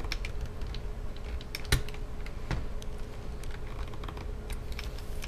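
Small flathead screwdriver prying at the plastic screen bezel of a Samsung laptop: irregular small clicks and ticks of plastic, with one louder click just under two seconds in.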